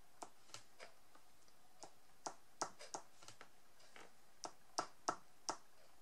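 A small dotting tool tapping drawing gum (masking fluid) onto paper card, about a dozen sharp, irregular clicks as the snowflake dots are set down one by one.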